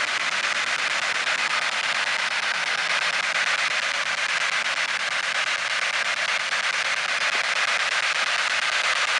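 Handheld spirit box (frequency-sweep radio) scanning through stations: a steady hiss of radio static finely chopped by the rapid sweep, with no voice breaking through.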